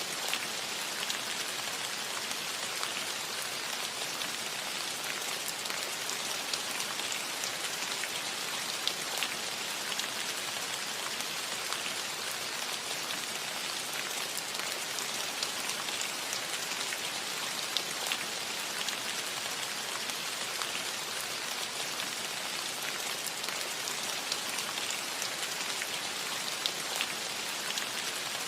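Steady rain falling on a metal roof: an even hiss of drops with scattered individual drop taps standing out.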